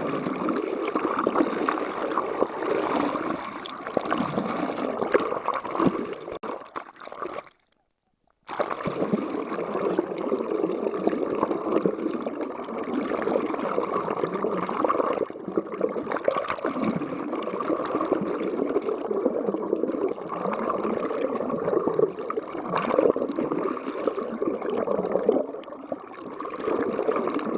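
Muffled rushing and gurgling of sea water recorded with the camera held underwater, steady throughout. It cuts to silence for about a second roughly seven and a half seconds in.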